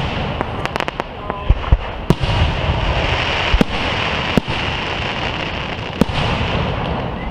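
Aerial firework shells bursting: a run of sharp bangs, several close together about a second and a half to two seconds in, then single bangs every second or so, over a continuous hiss.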